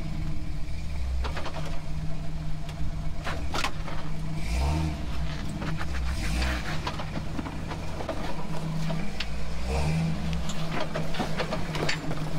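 Toyota FJ40 Land Cruiser's engine crawling over granite boulders at low speed, the throttle swelling three times: about a second in, around five seconds in and near ten seconds. Sharp knocks and scrapes come in between, from the tyres and chassis on the rock.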